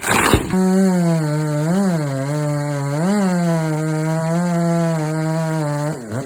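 Chainsaw revving up sharply, then running at high speed while cutting into the tree. Its pitch briefly rises twice and dips near the end.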